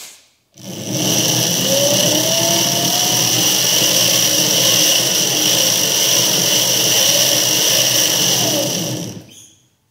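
48-volt 1800-watt brushless electric go-kart motor running on the bench, spinning a loose drive chain looped over its sprocket, with a steady high whine. It starts about half a second in and cuts off near the end.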